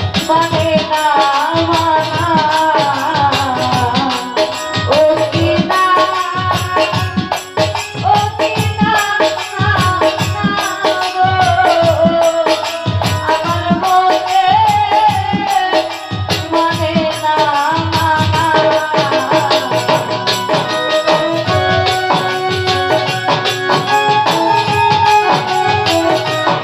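A woman singing a Bengali song live into a microphone over a steady rhythmic percussion accompaniment of shakers and drums.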